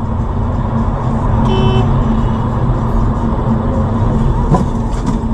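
Road noise inside a moving car: the steady low rumble of engine and tyres at highway speed. A short tone sounds about a second and a half in, and a brief knock comes near the end.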